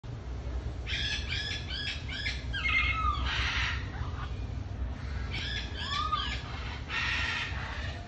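Rose-ringed parakeets calling in two bouts, about a second in and again about five seconds in: quick runs of short chirps and rising-and-falling calls, each bout ending in a harsh screech. A low steady rumble runs underneath.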